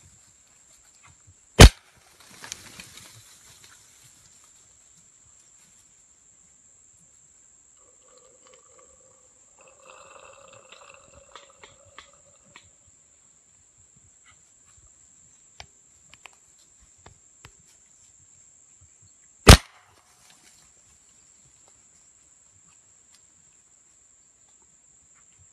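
.22 LR rifle fired twice, each a single sharp crack, the two about 18 seconds apart. Right after the first shot there is a short scramble of peccaries through dry leaves, and a steady high insect whine runs throughout.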